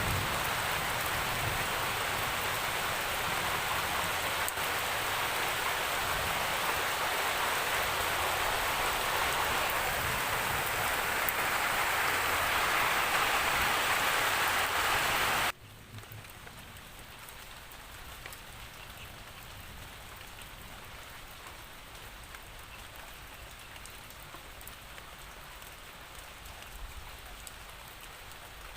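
Steady, heavy rain hiss. A little over halfway through it cuts off suddenly into a much quieter, lighter rain with scattered individual drops ticking.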